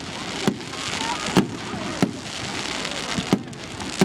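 Fireworks display: sharp bangs of bursting aerial shells at irregular intervals, about six in four seconds, over a steady crackling hiss.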